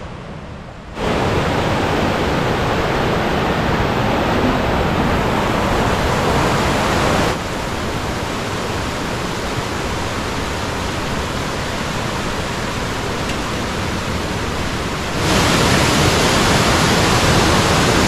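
Rushing mountain stream cascading over granite slabs and boulders, a steady roar of white water. It comes in suddenly about a second in, drops in level around the middle and jumps louder again near the end.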